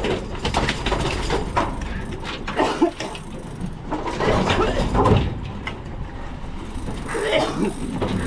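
Boat engine running under wind noise, with scattered knocks on deck and a few brief raised voices.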